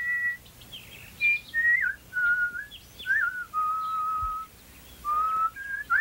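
Whistled bird-like tune of pure held notes that slide and warble between them, stepping down in pitch through the middle and rising again near the end.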